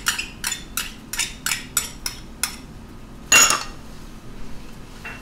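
Metal spoon tapping and scraping against a small ceramic bowl about four times a second as thick hoisin sauce is scraped out into a stainless steel pan. About three and a half seconds in comes one louder scrape of metal on the pan, then quieter stirring.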